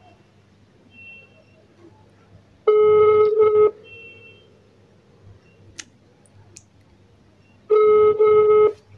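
Telephone ringback tone played through a smartphone's loudspeaker while an outgoing call rings unanswered: a steady buzzing tone about a second long, heard twice about five seconds apart.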